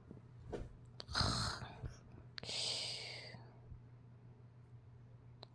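A toddler imitating snoring with exaggerated breaths: a short noisy inhale about a second in, then a longer breathy exhale about two and a half seconds in.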